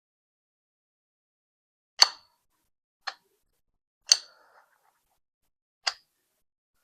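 Four sharp, separate clicks from a Kabro dimple padlock being handled and worked by hand, spaced about a second or two apart.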